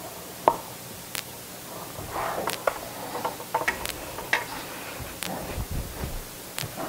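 Room handling noises: scattered sharp clicks and ticks with faint rustling, and a few low thumps near the end.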